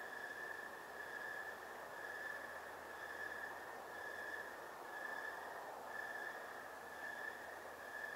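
Night insects calling in a steady high trill that pulses about once a second, over a soft hiss of night background noise.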